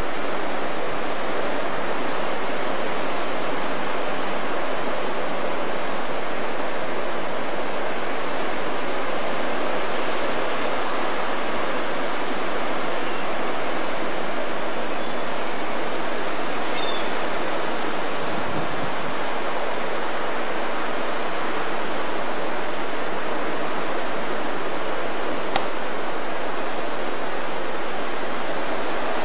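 Ocean surf breaking on a beach, heard as a steady, even roar, with one faint click near the end.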